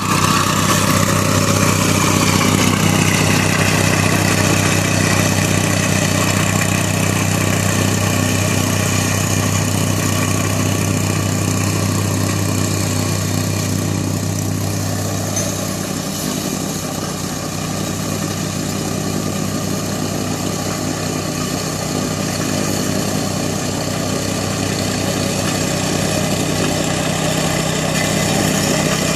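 An engine running steadily at idle; its low hum changes about halfway through.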